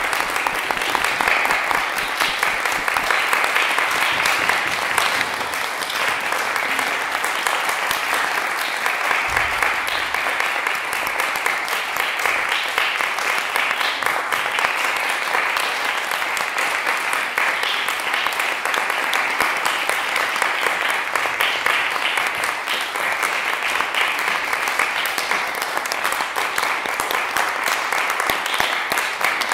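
Small audience applauding steadily, a dense patter of many hands clapping.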